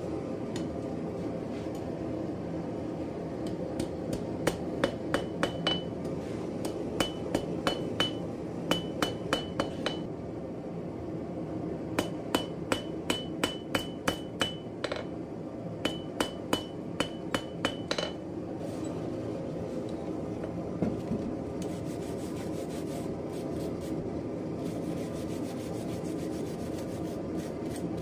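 Hand hammer striking round stock on an anvil in short runs of several quick blows with brief pauses between, each blow followed by a high metallic ring. The hammering stops about two-thirds of the way through, leaving a steady rushing noise underneath.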